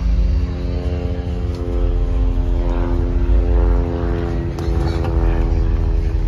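Steady engine drone: a deep low rumble under a held hum that keeps the same pitch throughout.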